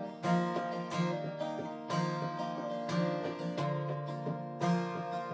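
Acoustic guitar strumming chords in a steady rhythm, an instrumental passage between sung lines of a song.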